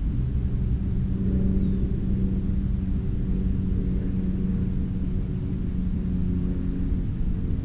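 Steady low engine drone over a low rumble, unchanging throughout.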